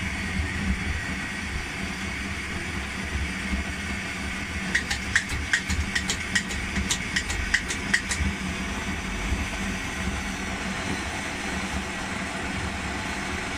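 A pressurised paraffin blowtorch burning with a steady low rush, its freshly repaired burner running under pump pressure. In the middle comes a run of about a dozen light clicks, some four a second.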